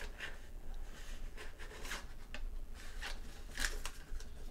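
Thermal-paper printout rustling in a handful of short crinkles as a cat nudges it with its head and a hand takes hold of it.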